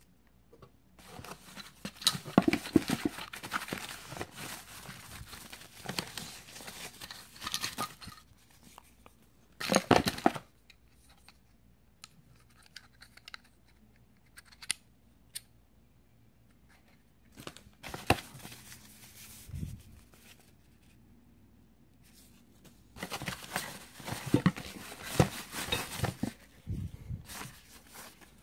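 Plastic packaging bags being handled and rustled in a cardboard box during an unboxing, in irregular bursts with small knocks. The longest bursts come in the first third and near the end, with a short loud one about ten seconds in.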